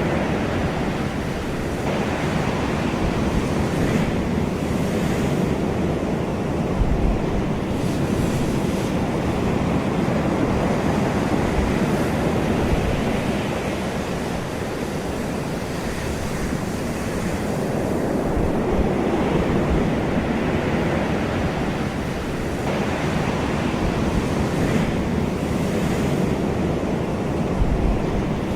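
Ocean surf: waves breaking and washing in a continuous rush that swells and eases every several seconds, with some wind noise on the microphone.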